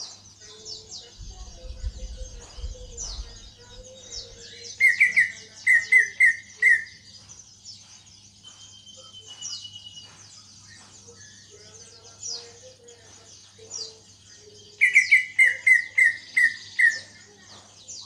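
Caged green leafbird (cucak ijo) singing two loud runs of about five quick repeated notes, one about five seconds in and one about fifteen seconds in. Thin high chirping from other small birds goes on throughout, over a steady low hum.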